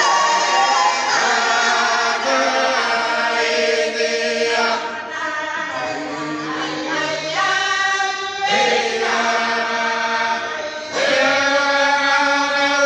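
A church congregation singing a hymn together, many voices in long held phrases, the sound carrying in a large hall.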